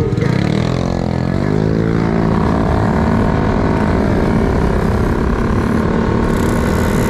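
Motor scooter engine easing off and then revving up as it pulls away, then running at a steady speed, heard from the pillion seat. A hiss of wind on the microphone joins near the end.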